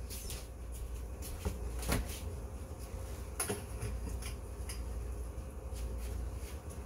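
Scattered faint clicks and knocks of things being handled in a kitchen, over a steady low hum.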